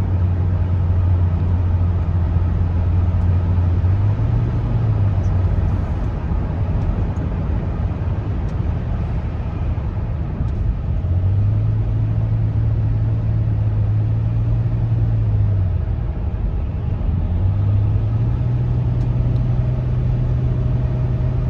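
Road noise inside a moving car: a steady rush of tyre and wind noise under a low engine hum that fades out and comes back twice as the car's speed or load changes.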